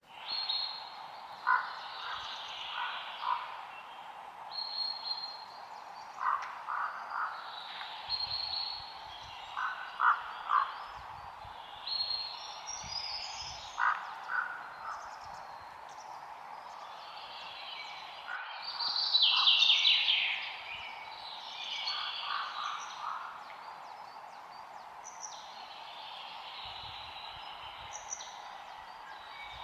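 Forest ambience: birds chirping and trilling over a steady background hum of wildlife. A call of three or four short notes repeats every few seconds, and one louder trill comes about two-thirds of the way through.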